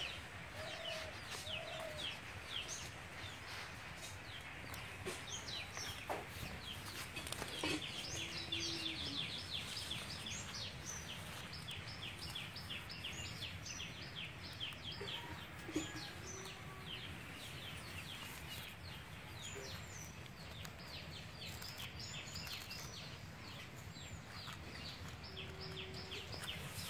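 Birds chirping in a rapid, continuous chatter, with a few low clucks from chickens near the start and now and then.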